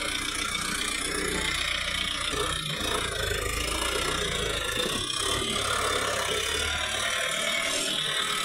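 Sonalika tractor's diesel engine running with a rattle as the tractor works through deep, wet mud, its engine note shifting a couple of times.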